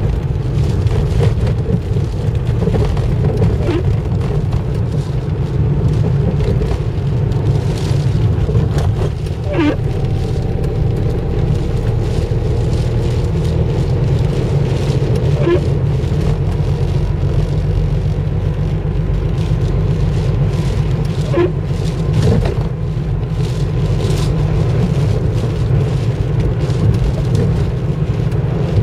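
Car running and driving on a wet road, heard from inside the cabin: a steady engine and tyre noise, with a short squeak about every six seconds.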